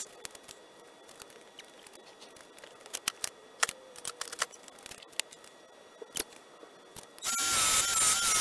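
Quiet with scattered light clicks and knocks for about seven seconds, then a small benchtop wood lathe starts up and runs loudly with a wavering whine while a wooden tool handle spins in it.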